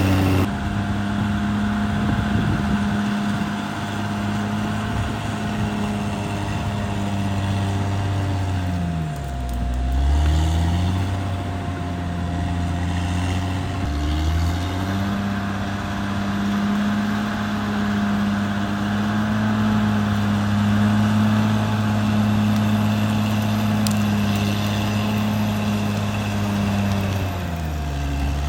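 Caterpillar D6R XL bulldozer's diesel engine running with a steady drone under a faint, steady whine. The engine speed drops and comes back up about nine to eleven seconds in, again briefly around fourteen seconds, and once more near the end.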